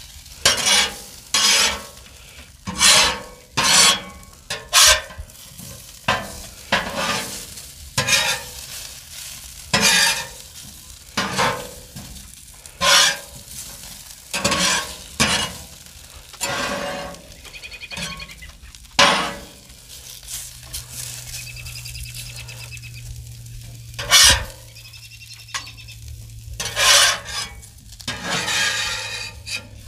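Metal spatula scraping and tapping potato slices across the hot steel top of a Blackstone griddle, about one stroke a second, over the sizzle of frying.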